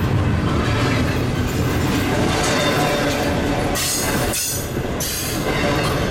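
Double-stack intermodal freight cars rolling past at close range: a steady rumble and clatter of steel wheels on the rails. About four seconds in there is a brief stretch of brighter, higher-pitched noise.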